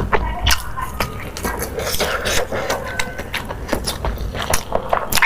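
Close-miked eating sounds: an irregular run of quick clicks and smacks from chewing food.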